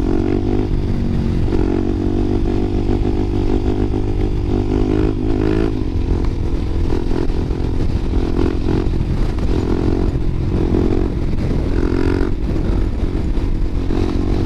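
Suzuki DR-Z400SM supermoto's single-cylinder four-stroke engine running under way. Its pitch climbs and drops back several times as the rider accelerates and shifts gears.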